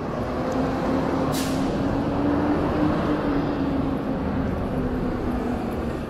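City street traffic with a heavy vehicle running close by: a steady rumble with a low hum, and a short hiss of air about a second and a half in.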